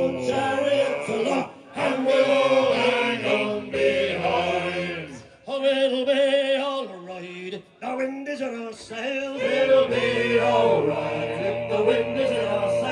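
A group of men's voices singing a sea shanty together in harmony, phrase by phrase with short breaks between lines.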